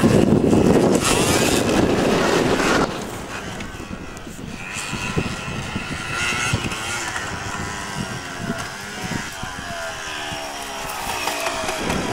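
Yamaha DT 125's two-stroke single-cylinder engine revving as the trail bike rides past, loudest for the first three seconds, then quieter, its pitch rising and falling with the throttle.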